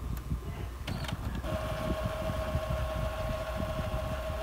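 Epson L6170 ink tank printer running its power (head) cleaning cycle. A click about a second in, then a steady motor whine that starts about a second and a half in.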